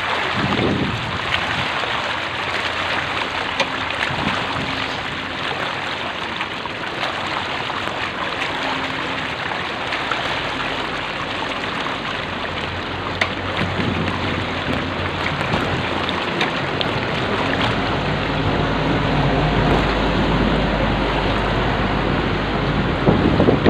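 Street floodwater splashing and churning steadily as it is pushed through. A low engine rumble comes in about halfway and grows louder near the end.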